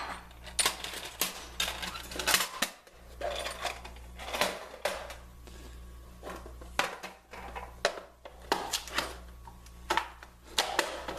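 Scattered metal clinks and clicks as steel drill bits and a chuck key are handled and set down among other tools.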